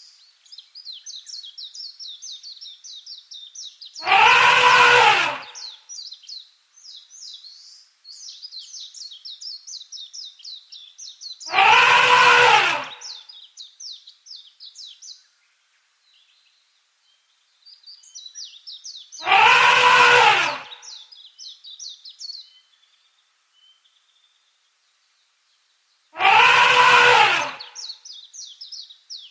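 Asian elephant trumpeting: four loud, high, brassy calls of about a second and a half each, rising then falling in pitch, repeated about every seven and a half seconds. Fast high chirping runs between the calls.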